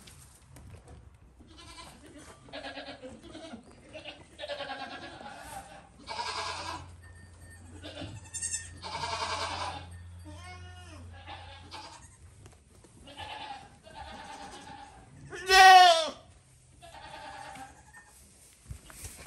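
Goats bleating again and again, a dozen or so wavering calls of up to a second each, with one much louder bleat near the end.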